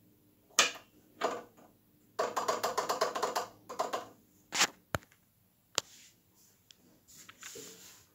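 Metal tool and machine parts being handled: a few separate knocks, then a quick run of about a dozen ratcheting clicks lasting about a second, then more sharp knocks and a short scrape near the end.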